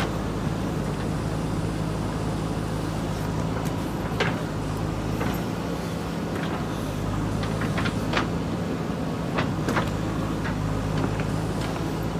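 JCB 3DX backhoe loader's diesel engine running steadily under working load, with scattered sharp knocks and clanks from the machine and its bucket every second or two.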